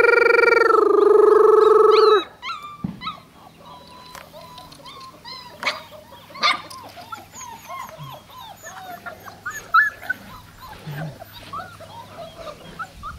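A loud, steady tone for about the first two seconds, which cuts off suddenly. Then puppies whimper and yip in many short, high squeaks that rise and fall, with a few louder yelps.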